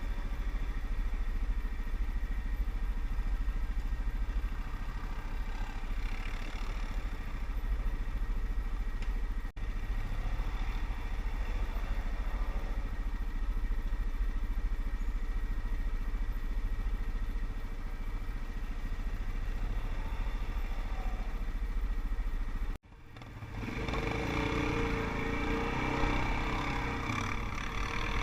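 ATV (quad bike) engine running continuously, with a heavy low rumble. It cuts off abruptly a little past two-thirds of the way through, then comes back louder and busier.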